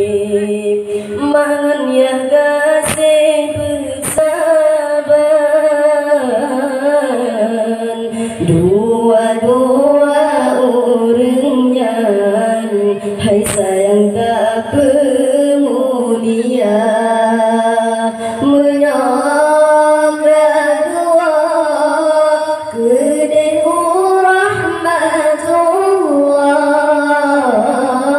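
Boys singing an Acehnese qasidah (devotional Islamic song) into handheld microphones, amplified over a sound system: a slow melody with gliding, drawn-out notes.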